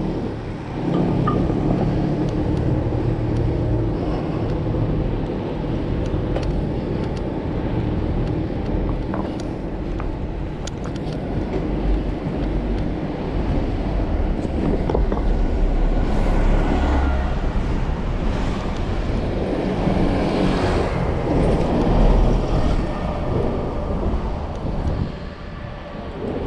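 Steady street traffic noise with passing vehicles, the sound swelling a couple of times past the middle.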